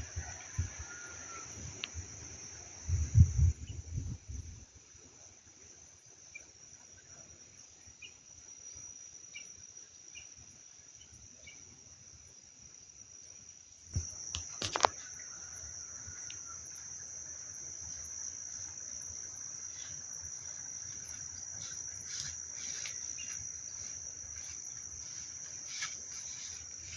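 Insects trilling steadily in a continuous high-pitched drone. There are a few low thumps about three seconds in and one sharp knock about halfway through.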